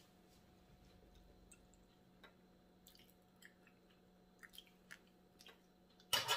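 Soft drips and small clicks of a metal ladle as hot pot broth is spooned into a ceramic bowl, over a faint steady hum. A louder clatter of dishes about six seconds in.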